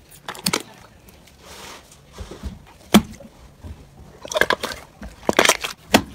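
Hands pressing, kneading and stretching a thick, creamy slime, giving irregular clusters of sharp wet pops and clicks.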